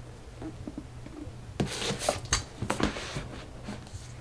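A few soft knocks and rustles, bunched in the middle, as a hardcover book is set down and slid in beside a row of books, over a faint steady hum.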